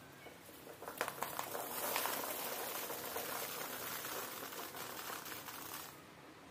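Garlic bulbs pouring out of a plastic tub into a mesh sack: a few separate knocks about a second in, then a steady dense clatter that stops about a second before the end.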